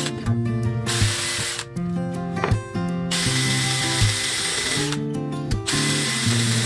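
A power tool running in three separate bursts of about a second and a half each, over background acoustic guitar music.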